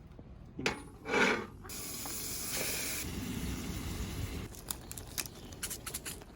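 Campfire cooking in a skillet over a wood fire: a short burst, then a steady sizzling hiss, then a run of sharp pops and crackles.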